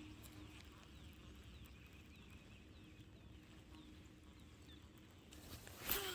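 Faint birds chirping over a quiet lake. Near the end comes a sudden louder swish as a baitcasting rod is swung into a cast.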